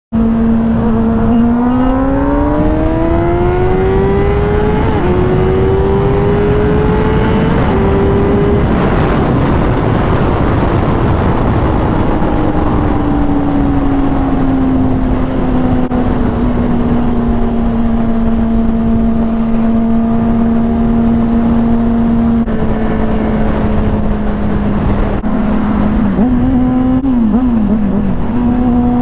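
Sport motorcycle engine pulling hard through the gears, pitch climbing and dropping at about four upshifts in the first nine seconds. It then eases off to a steady cruise, with a brief wavering of the revs near the end, under heavy wind noise.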